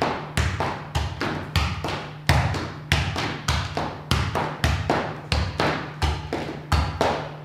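A football being juggled: the ball thumps off the player about twice a second in a slightly uneven rhythm, each touch ringing on briefly in a reverberant room, over a steady low hum.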